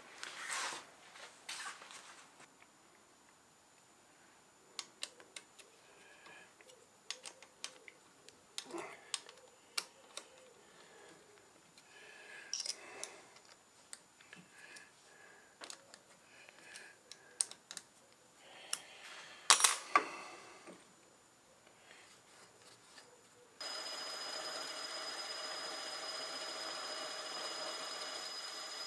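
Scattered metal clicks and clinks of hands working the tool post and tools of a small metal lathe, with one sharp clank about two-thirds through. Near the end the lathe starts and runs steadily with a whine, spinning the faceplate that carries a miniature petrol engine crankshaft.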